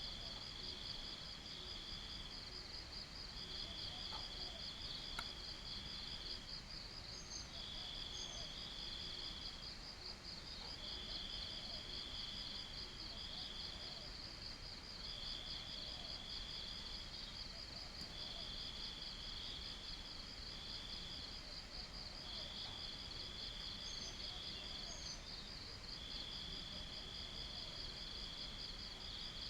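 Insects singing: one keeps up a steady, fast-pulsing high trill, while another joins in repeated phrases of one to two seconds with short breaks between them.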